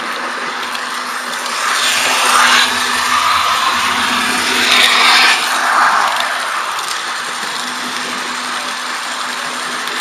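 H0-scale model train running along the layout's track, heard from the camera riding on it: a steady running noise from its motor and wheels, with two louder swells about two and five seconds in.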